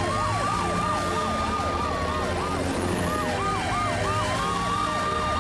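Emergency sirens of a cartoon police car, fire truck and ambulance sounding together as they drive. A fast up-and-down yelp, about three sweeps a second, is layered over a slower wail that rises and holds.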